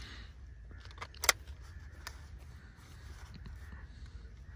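Sharp metallic clicks of an M4 carbine being handled and readied for firing: two clicks about a second in, the second the loudest, and a fainter one about a second later.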